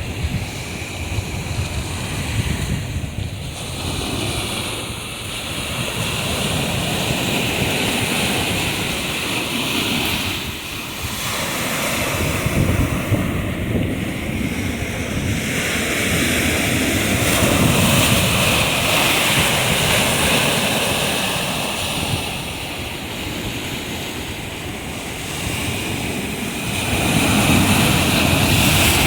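Black Sea surf breaking and washing up the shore in slow surges, with wind buffeting the microphone.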